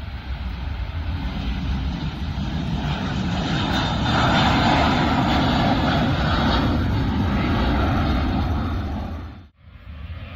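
Airbus A320 jet engines at take-off thrust as the airliner lifts off and climbs away. The noise swells to its loudest from about four seconds in, then cuts off sharply near the end.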